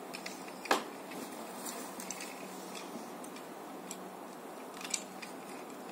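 A few light clicks and taps of plastic Tobot toy robot parts being handled, over a steady room hiss. The clearest click comes just under a second in, another near the end.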